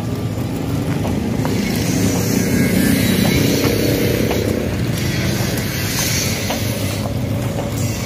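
Footsteps on concrete, about two a second, over a steady low outdoor rumble.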